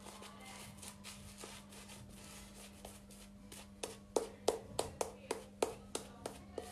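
Straight razor scraping through lathered stubble on the chin in a final touch-up pass: faint scratching at first, then from about four seconds in a quick run of short, crisp strokes, about three a second.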